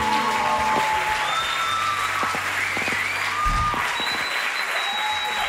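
Audience applauding at the end of a live rock band's song, the band's last held chord ringing out for about the first second.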